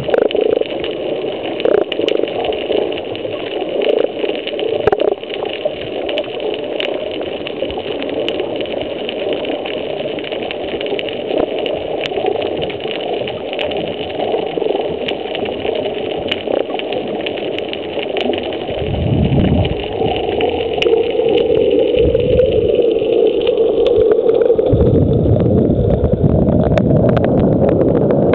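Underwater sound through a camera housing: a steady muffled hum with scattered faint clicks. About two-thirds of the way through, a low rumble of scuba exhaust bubbles swells in, strongest near the end.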